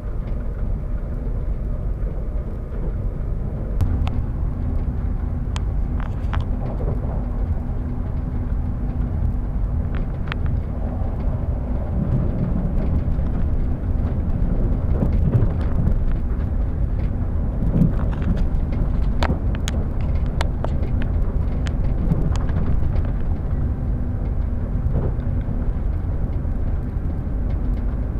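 Suburban train running, with a steady low rumble and scattered short clicks and squeaks from the wheels and carriage.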